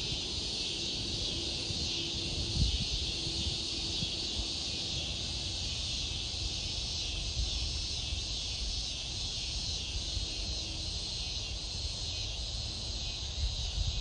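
A steady, shrill chorus of insects in summer trees, with a low rumble underneath.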